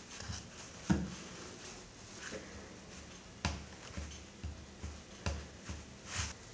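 Jacket fabric rustling, with a series of soft thumps and clicks as hands and sleeves shift around a small dog on a wooden tabletop: one about a second in, then several close together near the middle and end.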